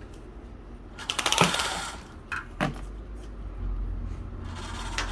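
A window being opened: a burst of rattling and scraping about a second in, then two sharp clicks. A low rumble sets in near the end.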